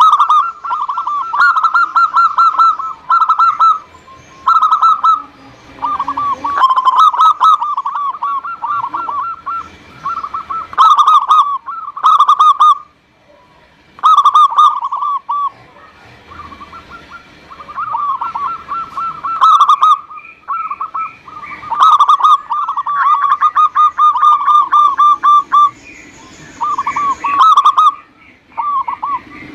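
Zebra dove (perkutut) cooing: a dozen or so loud phrases, each a fast run of short bubbling notes, with short pauses between them and a longer lull about halfway through.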